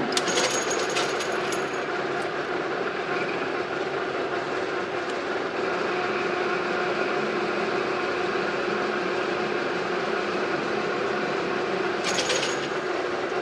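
Heavy machinery engine running steadily with a constant hum, with short metallic clatters near the start and again near the end.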